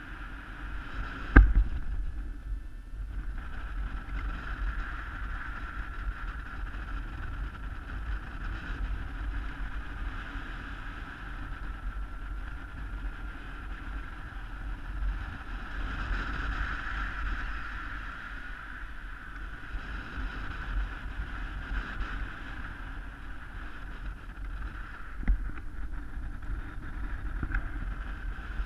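Wind rushing and buffeting over a helmet-mounted camera's microphone in paraglider flight, with a steady high whine underneath. A sharp knock about a second and a half in is the loudest sound, and a smaller one comes near the end.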